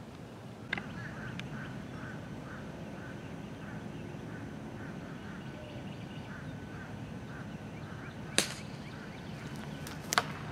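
A golf club striking the ball: one sharp crack about eight seconds in, followed near the end by two quick fainter clicks. Underneath is a steady outdoor background with a faint call repeating about twice a second.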